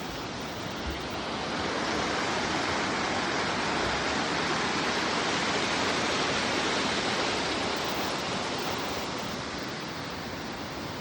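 Waterfall: a steady rush of falling water, swelling slightly after a couple of seconds and easing a little near the end.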